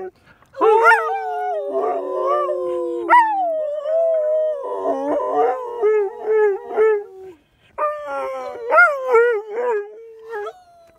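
Dogs howling together in long, gliding, overlapping calls, broken by shorter yelping calls in between.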